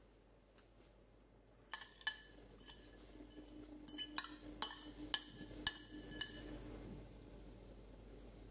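A metal utensil clinking against a stainless steel pot, about eight sharp ringing clinks over some four seconds, starting about two seconds in, as chopped greens are added and stirred into the soup.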